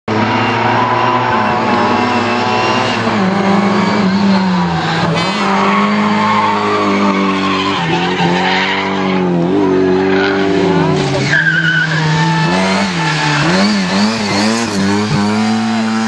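Rally car engines revving hard through corners, the pitch climbing and dropping over and over with gear changes and throttle lifts. A brief tyre squeal comes about eleven seconds in.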